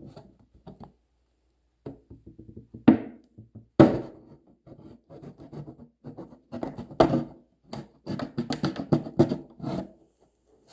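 Scissors cutting into a plastic water jug, with irregular knocks, clicks and crackles of the jug being handled; two sharp knocks stand out about three and four seconds in.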